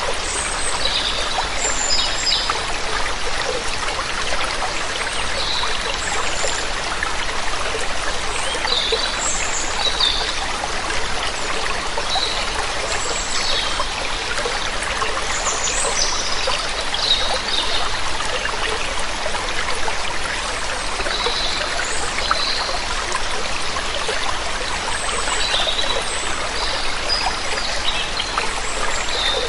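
Steady rush of a waterfall or stream, with songbirds chirping over it in short calls every second or two.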